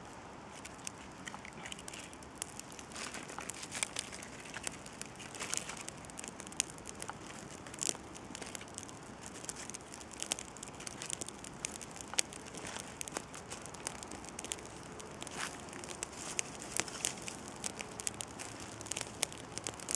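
Small kindling fire of birch bark, twigs and bark pieces burning, with many irregular sharp crackles and snaps over a faint steady hiss as it catches.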